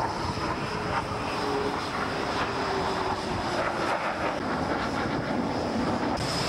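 Tornado GR4 jet engines, RB199 turbofans, running on the ground with a steady rushing noise and a constant high whine, and a fainter lower tone that slowly drops in pitch.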